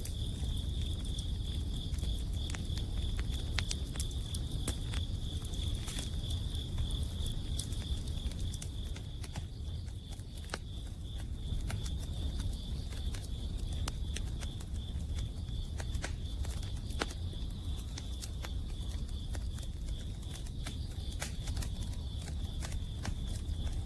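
Wood campfire crackling, with sharp irregular pops, over a steady high-pitched trill of autumn insects and a low continuous rumble.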